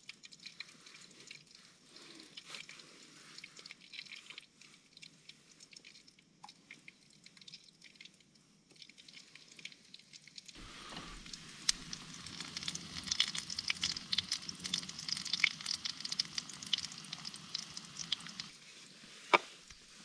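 Sausage slices frying in a small pan on a camp stove, sizzling and crackling with many fine pops, starting about halfway through after a stretch of faint knife taps on a wooden board. A single sharp knock comes near the end.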